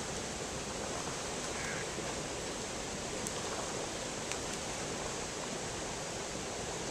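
Steady rush of creek water running over rocks in a shallow riffle, an even noise without breaks.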